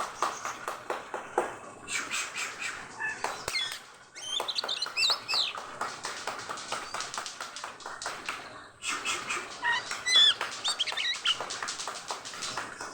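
Oriental magpie-robin (kacer) in breeding condition singing hard: fast runs of sharp chattering notes, broken twice by rising and falling whistled phrases, about four seconds in and again near ten seconds.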